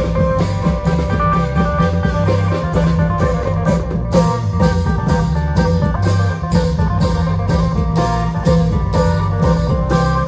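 Isan klong yao long-drum band music, played loud and continuous: a steady, driving drum beat under a repeating plucked string melody.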